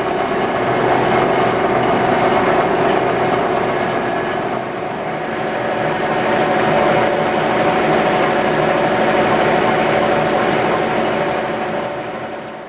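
A homemade surface grinder running: a loud, steady whirr with a hiss and a constant hum that swells slightly and dies away at the end.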